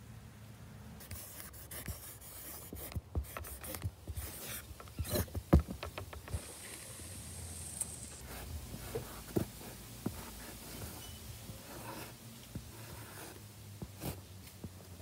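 Paint marker tip rubbing and scraping across a rough wall in short, irregular strokes, with scattered sharp clicks; the loudest clicks come about five seconds in.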